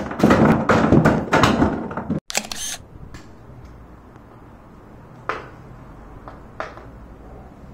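Stacked hockey pucks knocked off a shelf by a hockey stick: a quick run of hard knocks and thunks as they tumble, lasting about two seconds. It gives way to a quiet outdoor background with two light taps.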